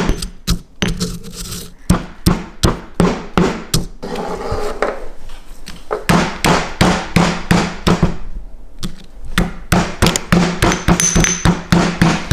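Oreo cookies being crushed with a run of repeated pounding strikes, about two to three a second, broken by a couple of short pauses.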